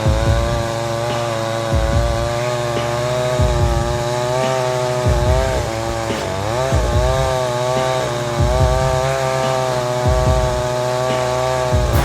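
Chainsaw running under load, cutting into a large tree trunk, its pitch wavering as the chain works through the wood. A low thump comes about every second and a half.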